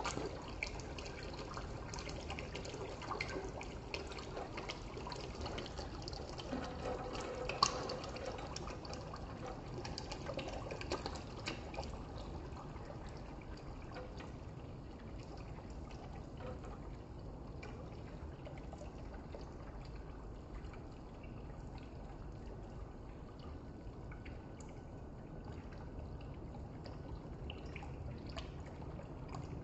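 Water pouring into a shallow container of poppy seeds, trickling and splashing with small drips. The splashing is busier for the first twelve seconds or so, then settles into a softer, steadier trickle.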